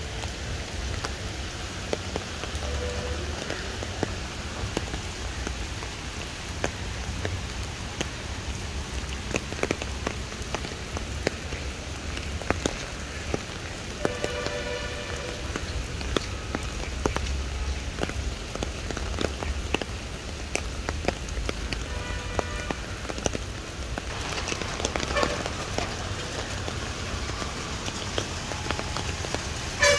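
Steady rain falling on paving stones and lake water, an even hiss with many small sharp drop ticks.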